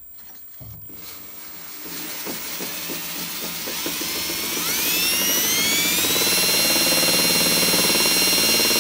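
Cordless drill spinning a balsa-wood space derby rocket body while 400-grit sandpaper is held against it. The motor's whine climbs in pitch and loudness over the first six seconds or so, then holds steady at high speed, with the hiss of the paper rubbing on the spinning wood.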